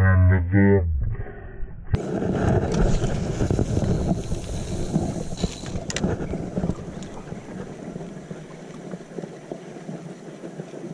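Steady wind and water noise on an open boat, with a brief voice at the very start and a single sharp click about six seconds in.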